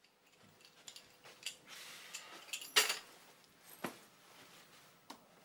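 A man's handling noises as he comes into a room: a door handle and key rattling, clothing rustling, then several sharp clicks and clatters of things being put down. The loudest clatter comes about three seconds in, with another knock about a second later.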